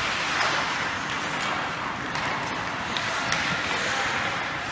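Ice hockey rink during play: a steady hiss of skates on the ice mixed with arena noise, with a few faint knocks.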